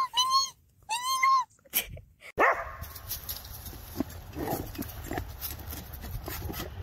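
Two short, high, arching animal cries in the first second and a half, then dogs scuffling around a tetherball pole: steady rustling with many light knocks.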